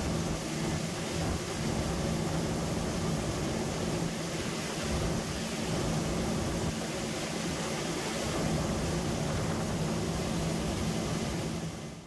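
Steady mechanical hum with a couple of low steady tones over a constant hiss.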